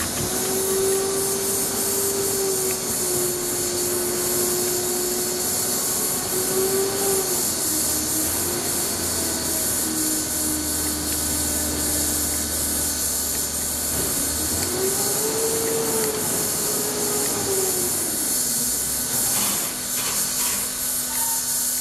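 Steady machine hiss and low hum, with a tone that slowly rises and falls in pitch over several seconds. A few light metallic clicks come near the end as the screw on the aluminium drain strainer is turned with an Allen key.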